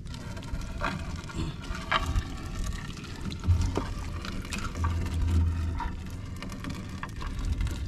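Wet nylon fishing net being hauled by hand into a small wooden outrigger canoe: the net rustles and gives scattered small clicks and knocks against the hull over a steady low rumble.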